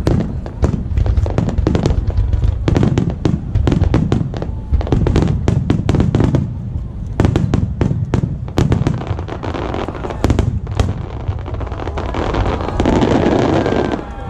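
Aerial fireworks in a rapid volley of sharp bangs and deep booms. Near the end it builds into a dense crackle of bursting stars.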